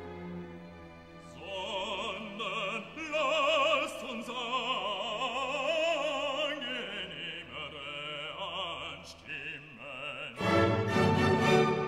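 Background music: an operatic voice singing with strong vibrato over orchestral accompaniment. The music swells louder near the end.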